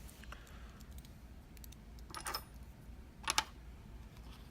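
Small metal clicks and clinks from a euro-profile dimple lock cylinder and its tools being handled on the bench, in two brief clusters about two and three seconds in.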